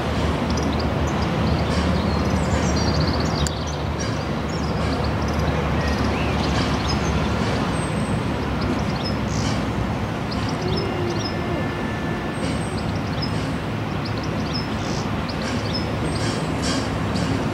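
LNER A4 Pacific steam locomotive under steam hauling a train, a steady exhaust and running rumble. Birds chirp high over it throughout.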